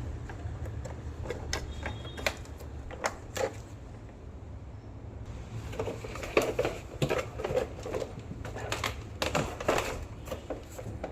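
Irregular clicks and knocks of small tools and parts being handled, denser in the second half, over a steady low hum.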